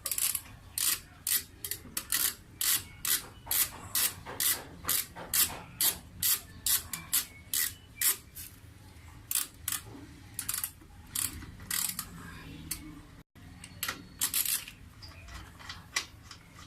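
Ratchet head of a 1/2-inch drive click-type torque wrench ratcheting in repeated strokes: a steady run of sharp clicks, about two to three a second, thinning out and becoming irregular in the last several seconds.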